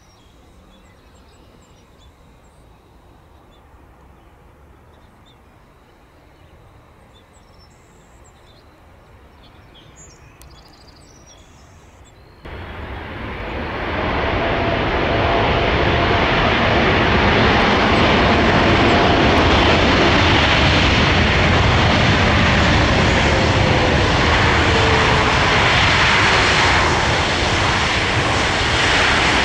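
Faint outdoor background for about the first twelve seconds. Then a Boeing 787-9's jet engines come in abruptly, spool up over a couple of seconds and run loud and steady, typical of takeoff power on the runway. A faint tone inside the roar falls slowly.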